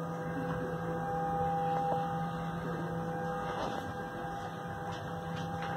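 Steady electrical hum made of several constant tones, from equipment running in the aircraft cabin, with a faint click about two seconds in.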